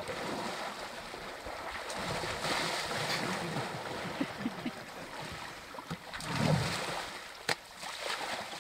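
Water splashing and sloshing as African elephants wade and play in a shallow river, a churning noise that swells and fades. A single sharp click near the end.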